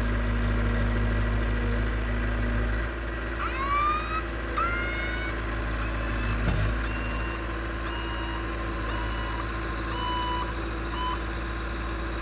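Heavy machine's engine running steadily under load as it pushes against a leaning tree, with a few rising squeals a few seconds in and short high tones about once a second later on. The machine is struggling with the tree.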